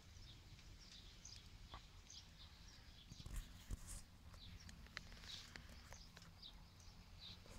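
Near silence: faint chirps of small birds in the distance and a few soft crackles from the wood fire inside a milk-can hobo stove, over a low steady rumble.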